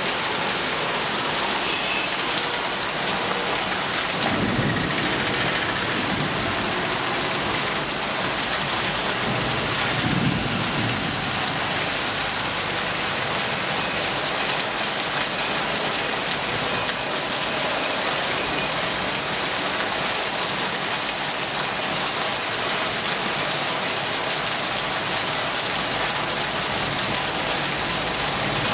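Heavy rain pouring steadily onto the ground, puddles and tree leaves. A brief low rumble comes twice, about four and ten seconds in.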